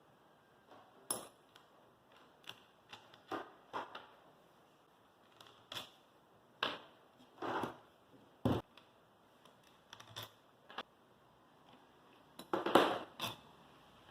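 Irregular clicks, taps and clunks of an angle grinder being handled, with no motor running. A louder cluster of knocks and scraping comes near the end.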